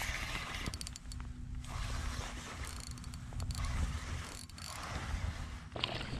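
Spinning reel being cranked steadily to wind in a hooked octopus: a continuous mechanical winding with a few sharp clicks.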